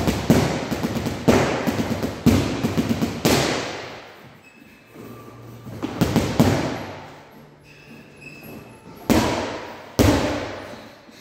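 Boxing gloves punching a hanging heavy bag: a quick flurry of thuds at the start, then single hard hits about once a second, a pause, another short flurry, and two hard hits near the end. Each hit rings on briefly in the large room.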